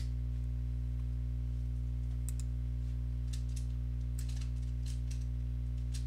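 Scattered light clicks of a computer mouse, some in quick pairs, starting about two seconds in, over a steady low electrical hum.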